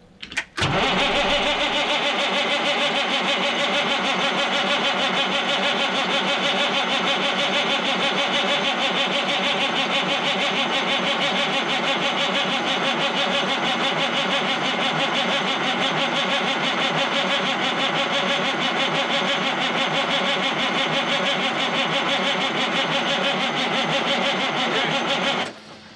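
Caterpillar 3406B diesel being cranked over on its starter, a steady pulsing churn held for about 25 seconds without catching, then cut off suddenly near the end. It is being cranked to pull fuel through the newly installed pump to the cracked injector lines.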